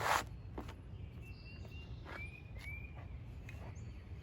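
A sharp knock right at the start and a lighter click just after, then outdoor ambience with a steady low rumble and a small bird giving two short chirps about halfway through.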